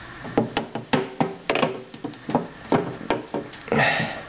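A quick, irregular run of about a dozen light knocks and taps as a corner feeding dish is pushed and settled into the corner of a reptile tank. There is a short rustle near the end.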